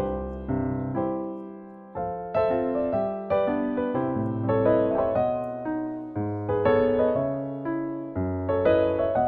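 Background solo piano music: notes and chords struck about two or three times a second, with a brief lull about a second and a half in.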